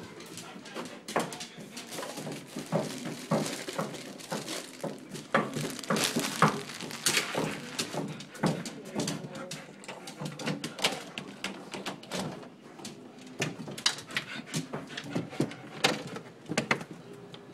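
German shepherd moving about restlessly near a door, with many short clicks and knocks throughout.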